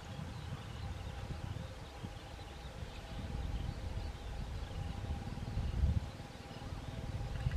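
Kubota M6040SU tractor's diesel engine running steadily while pulling a loaded trailer, under gusty wind rumbling on the microphone.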